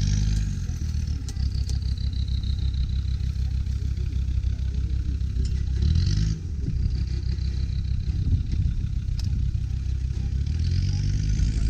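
Land Rover Discovery Td5's five-cylinder turbodiesel engine working under load as it crawls over rocks, revving up in surges near the start, about halfway and near the end. Each surge carries a high whine that climbs with the revs.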